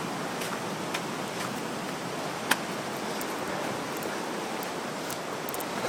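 River rapids rushing in a steady hiss, with a few faint clicks over it, the sharpest about two and a half seconds in.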